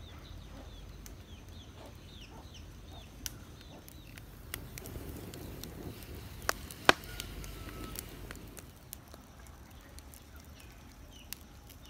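Chickens calling faintly, with scattered sharp pops and crackles from coconut-palm fronds burning in a clay pot stove, the loudest pop about seven seconds in.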